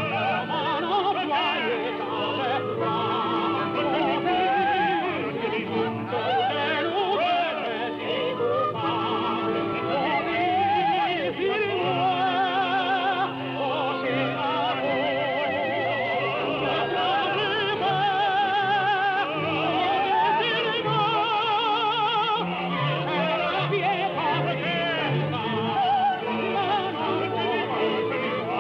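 Operatic voices singing with wide vibrato over an orchestra, from a 1939 opera recording. The sound is thin, with no brightness at the top.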